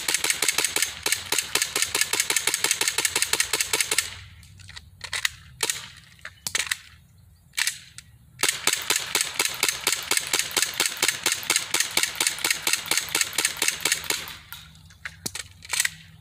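Gas-powered airsoft pistol firing rapid strings of sharp shots: a long fast run, then a few single shots, another long fast run, and a few more single shots near the end. The magazines were charged with gas that the shooter thinks is overgassed.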